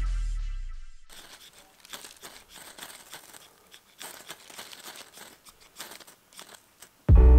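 Knife spine scraped again and again down a ferrocerium rod, a series of irregular rasping strokes striking sparks onto a cotton-pad tinder. Background music fades out about a second in and cuts back in loudly near the end.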